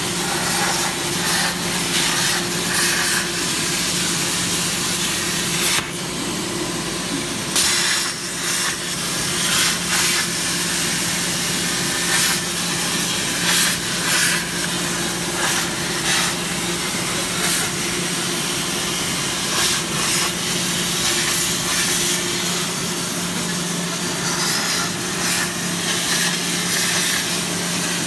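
CNC plasma cutter torch cutting steel sheet: a loud, steady arc hiss over a low hum, flaring louder for a moment every second or two.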